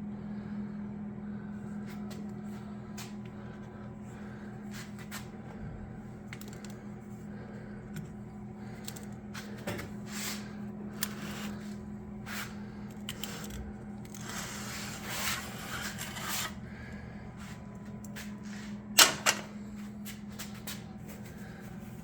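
Metal machine parts being handled during a Bridgeport milling machine teardown: scattered clicks, knocks and a few seconds of scraping over a steady low hum, with two sharp knocks near the end.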